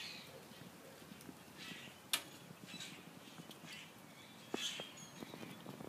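Quiet outdoor ambience: a faint steady background with a few brief high-pitched sounds and one sharp click about two seconds in.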